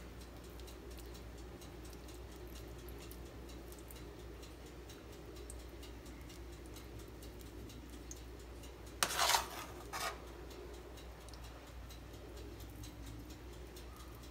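Quiet handling sounds of a metal spoon and crinkled aluminium foil as mashed potato is pressed into a whole fish. There are faint ticks throughout, a brief scraping rustle about nine seconds in, and a shorter one a second later.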